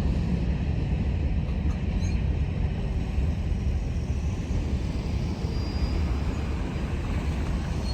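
Steady low rumble of a CSX freight train of covered grain hopper cars rolling past and moving off.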